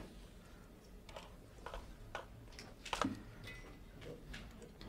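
A few faint, irregular clicks and taps over quiet room tone, the sharpest about three seconds in: a computer mouse and keyboard being worked at a lectern.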